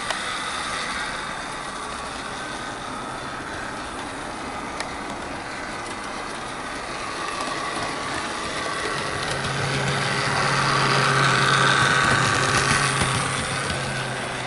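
Heljan OO-gauge Class 17 Clayton model locomotive running on the layout: its electric motor whirring and its wheels rolling on the rails. It grows louder about ten seconds in as it passes close by, then eases off near the end.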